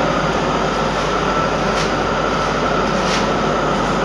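Automatic atta (wheat flour) mill plant running: a loud, steady mechanical drone with a constant hum.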